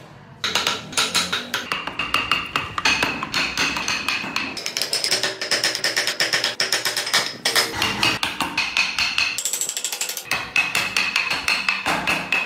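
Background music with a quick percussive beat, starting loudly about half a second in.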